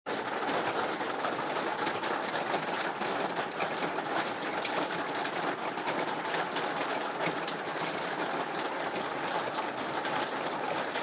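Heavy rain falling steadily: an even hiss dense with small drop ticks.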